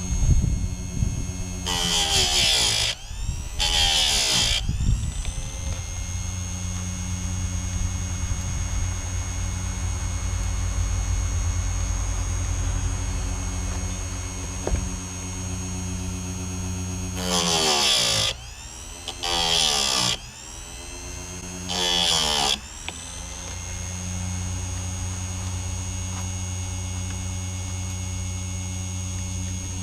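Chicago Electric bench chainsaw sharpener's grinding wheel spinning with a steady motor hum, ground against chain teeth five times for about a second each: twice near the start and three times around the middle, the pitch sagging under load on each pass and then recovering.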